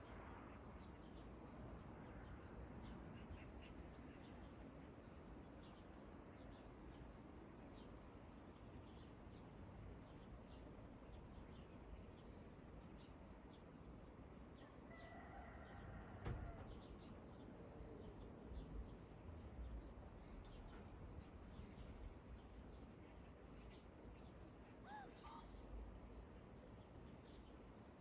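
Faint, steady high-pitched chorus of crickets at dawn, with a few soft distant bird calls, one about fifteen seconds in and a short chirp near the end.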